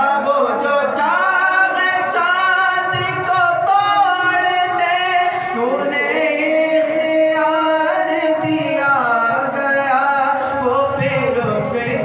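A man singing a naat unaccompanied into a microphone, with long held notes and ornamented turns in pitch.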